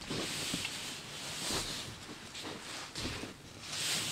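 Hands rubbing and smoothing over the paper pages of an open 1940 magazine, a papery rustle in a few strokes.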